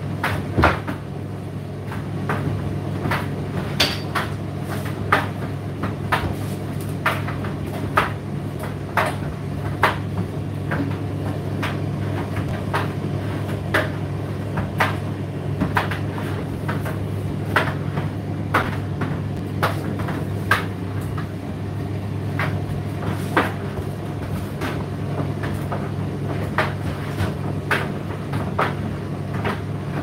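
Indesit IDC8T3 8 kg condenser tumble dryer running: a steady motor and drum hum, with sharp knocks and clicks roughly once a second at irregular spacing as the load tumbles in the drum.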